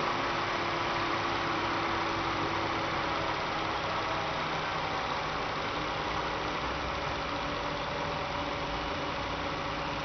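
Electric cooling-system fan driven by a PWM speed controller, running with a steady whir and hum; its tone shifts slightly a few seconds in.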